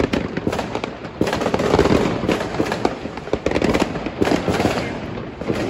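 Fireworks and firecrackers going off all around: a dense, unbroken run of overlapping bangs and crackles.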